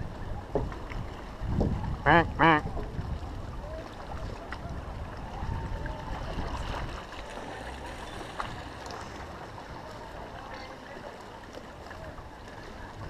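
Sea waves washing, with two short, loud, wavering calls about two seconds in.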